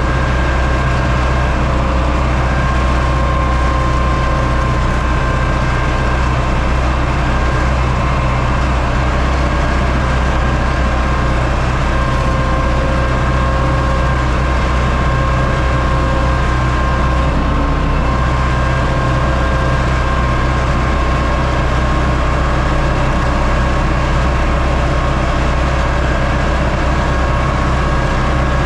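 Universal U650 tractor's four-cylinder diesel engine running at steady revs.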